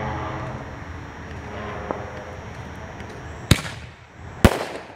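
A 1-inch canister firework shell fired from a mortar tube over a steady low background hum. A sharp launch bang comes about three and a half seconds in, then the shell bursts overhead with a second, slightly louder bang about a second later.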